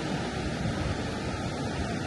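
Ocean surf breaking and washing up the beach, a steady rush of noise.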